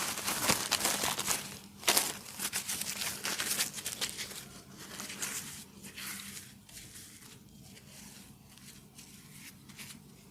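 Close, crinkly rustling and rubbing noises, dense for about the first four seconds, then sparser and fainter.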